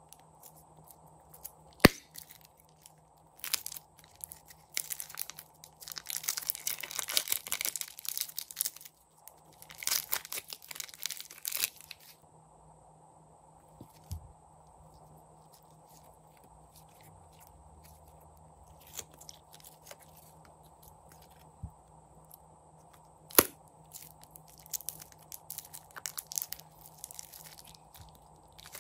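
Slime being squeezed out of plastic piping bags and worked by hand: crinkling plastic and sticky crackling and popping of the slime, densest in spells about 5 to 12 seconds in, sparser later. Two sharp clicks stand out, one near the start and one about two-thirds through.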